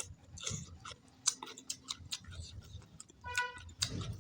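Close-miked chewing of chicken and rice: irregular wet mouth clicks and smacks. About three seconds in there is a brief high-pitched call.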